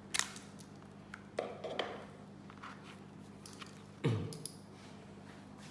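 Handling noise from a rubber-cased phone and its coiled cable: soft clicks and rustles, with a louder bump about four seconds in. A faint steady hum runs underneath.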